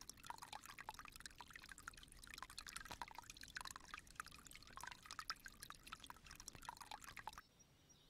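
Varied tit bathing in a rock pool: faint splashing, with many small droplets pattering on water and rock, stopping a little after seven seconds in.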